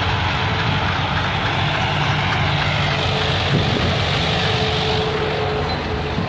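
Diesel tractor engine running steadily under load as it pulls a rotavator seeder through paddy stubble, a continuous low rumble with a thin steady whine above it.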